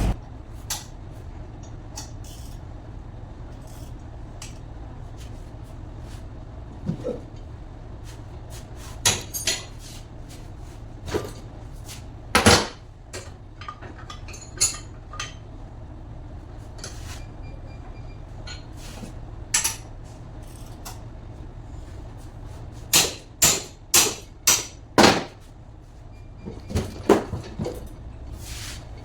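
Scattered sharp knocks and clicks of tools on metal parts, with a run of four hard strikes in quick succession about three-quarters of the way through, over a steady low hum.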